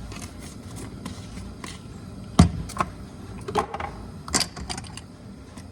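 Plastic spice containers being handled: a few sharp clicks and taps of lids and bottles, the loudest about two and a half seconds in.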